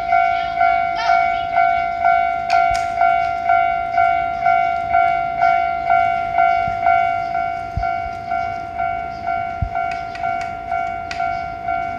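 Japanese railroad crossing warning alarm ringing, a repeating electronic ding about twice a second on one steady pitch.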